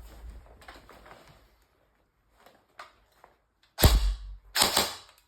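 Two loud gunshot-like bangs, about three-quarters of a second apart, each ringing out briefly, after a second or so of faint rustling and small clicks.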